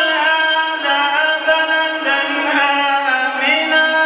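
A man's voice chanting Quran recitation in the melodic tajwid style, holding long drawn-out notes that step and glide between pitches.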